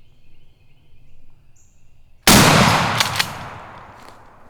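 A single shotgun blast at a turkey about two seconds in, its report rolling away and fading over a second or more.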